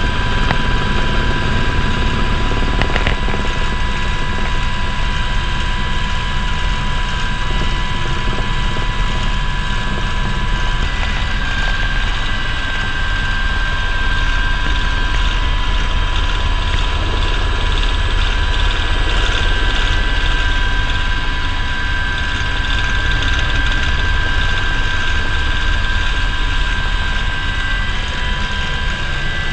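Aérospatiale Alouette II turbine helicopter in low flight, heard from inside its cockpit: a steady high turbine whine over the low rumble of the rotor, with the same level throughout.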